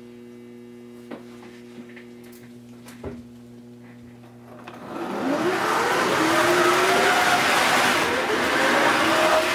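A steady electrical hum with a few small clicks. About five seconds in, the Class 251 Blue Pullman model train's electric motor starts up loudly, with a whirring whine that rises in pitch as the train pulls away along the track.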